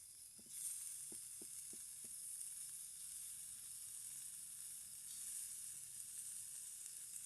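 Fish frying in a pan of hot oil, with a steady sizzle that gets louder about half a second in. A few light taps sound in the first two seconds.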